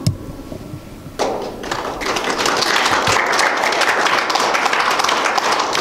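Congregation applauding, beginning about a second in after a single knock at the start.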